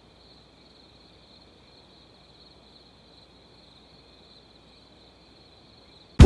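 Faint, steady insect chorus: a thin, even high-pitched buzz that does not change.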